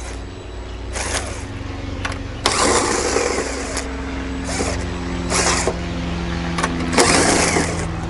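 DeWalt cordless drill with a 3/8 socket backing out the bolts of a vehicle lift, run in several bursts with its motor whine changing pitch from one run to the next.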